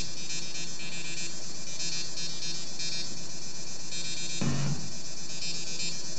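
Minimal electronic music: a steady, dense high buzzing texture of held tones, with a single low pulse about four and a half seconds in.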